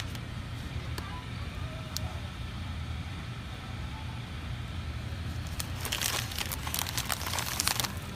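Steady low hum of grocery-store ambience, with a dense run of crinkling crackles for about two seconds near the end.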